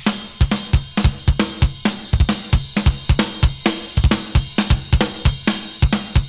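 Rock music backing track: a drum kit playing a fast, steady beat with kick, snare and cymbals, under a low bass line.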